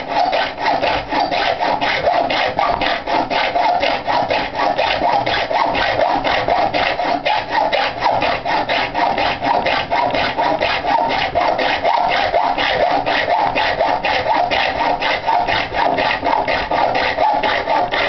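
Hand hacksaw cutting through a stainless steel flat bar clamped in a plastic jig: steady back-and-forth rasping strokes in an even rhythm.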